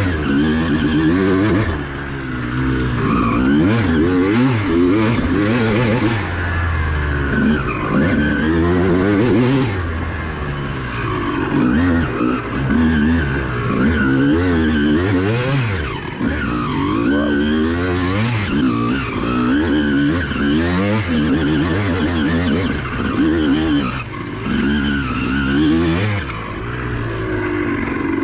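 Honda CR250R 250cc two-stroke single-cylinder dirt bike engine being ridden hard. Its pitch climbs and drops over and over as the rider accelerates, shifts and backs off the throttle.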